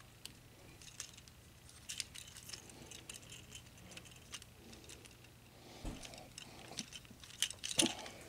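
Plastic Transformers action figure being handled and transformed: scattered light clicks and rattles of its plastic parts and joints, with a soft thump about six seconds in.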